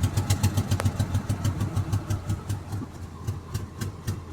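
Mercedes-Benz W211 E240's V6 engine just after catching from a hard start, idling rough with an uneven, lumpy pulsing that eases and quietens after about two seconds. This is the rough idle of a random multiple-cylinder misfire.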